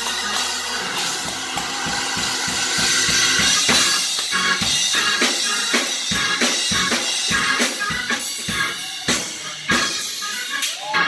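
Live church music: a drum kit playing a fast, driving beat of kick and snare hits over sustained keyboard chords.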